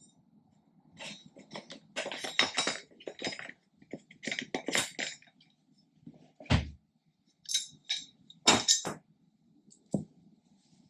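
Metal hardware clinking and rattling as inline skate wheels and axle bolts are taken off the frame: irregular sharp clicks and short rattles, with a couple of duller knocks, the loudest about eight and a half seconds in.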